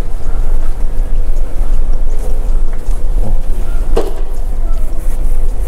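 Steady low drone of the car ferry Sunflower Kirishima's engines carried through the hull while under way. About four seconds in comes a single sharp click from a hand-sanitizer pump dispenser.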